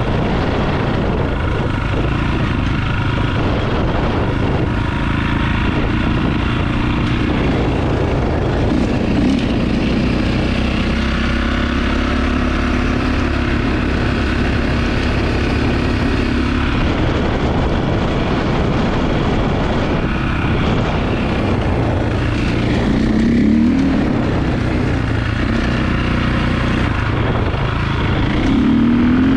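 Dirt bike engine running under way on a trail, its pitch rising and falling a few times with the throttle.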